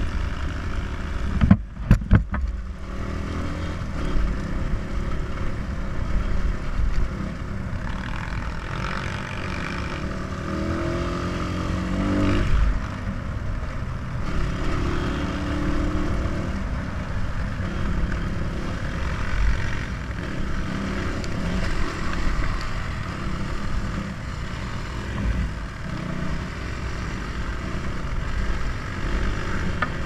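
Dirt bike engine running as it is ridden, its pitch rising and falling with the throttle and gear changes. A few sharp knocks about two seconds in are the loudest sounds.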